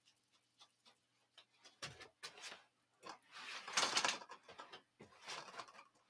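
Hands rubbing hair product together, then working it through a mannequin head's wet hair: soft rubbing and handling noises in uneven bursts, the loudest about four seconds in.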